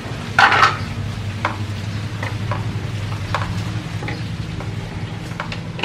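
Water splashing in a plastic basin as toys are handled in it: one louder splash about half a second in, then scattered small splashes and clicks. A steady low hum runs underneath.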